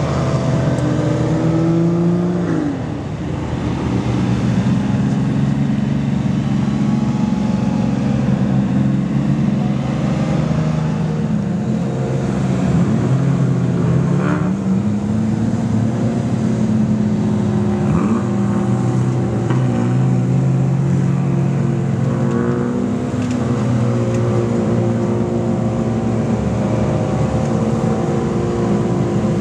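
Many race car engines running together on the grid: a dense, steady idle of several engines at once, with single engines revving up and dropping back now and then.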